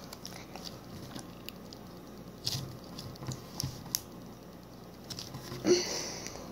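Soft squishy toy being squeezed and kneaded between the fingers, making small sticky clicks and squelches. About five and a half seconds in comes a louder short sniff as the toy is held to the nose.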